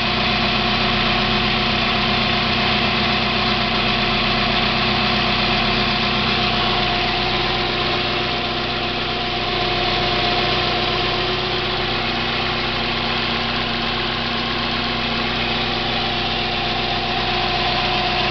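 1990 Mazda Miata's 1.6-litre four-cylinder engine idling steadily with the clutch engaged, carrying a steady whirring noise. The owner cannot place it but ties it to the clutch, because the noise stops when the pedal is pushed in.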